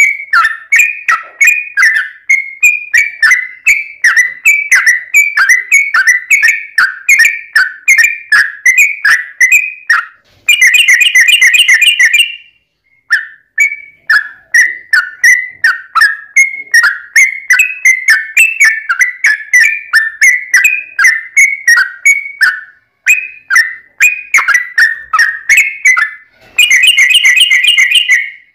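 Yellow-vented bulbul (trucukan) singing loudly: a run of quick, repeated whistled notes, about three a second, broken twice by a fast rattling trill of about two seconds, once about a third of the way in and again near the end.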